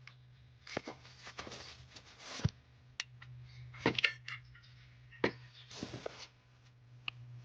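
Scattered metal clicks and short scrapes of a deep socket on an extension being worked down into a spark plug well, over a steady low hum.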